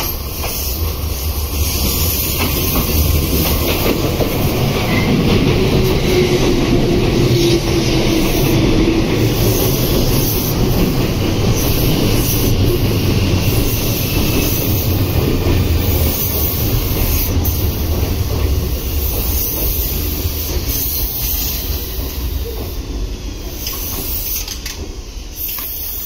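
Meitetsu electric train passing close by: wheels rumbling over the rails, with a whine that falls in pitch. It swells to its loudest through the middle and eases off near the end.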